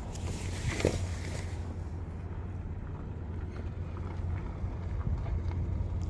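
Low rumble of wind buffeting the microphone, with a brief rustle about a second in.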